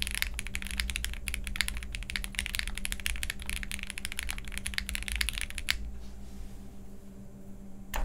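Fast typing on a jris65 65% mechanical keyboard with linear Gateron Ink Black switches, a polycarbonate plate and Poron plate foam: a dense, even run of keystrokes that stops a little past two-thirds of the way through. After a pause there is a single sharp clack near the end.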